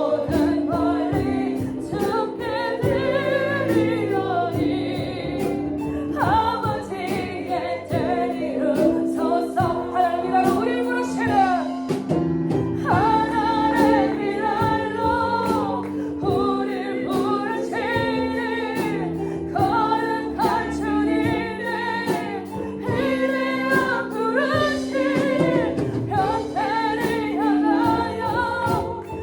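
A Christian worship song: voices sing a melody over sustained instrumental accompaniment, with a steady percussive beat.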